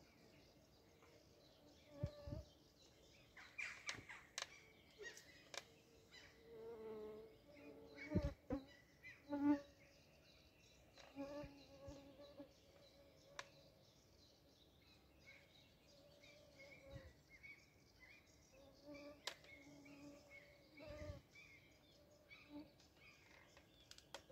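Faint insect buzzing that comes and goes several times, loudest about nine seconds in, with scattered light clicks and faint bird chirps.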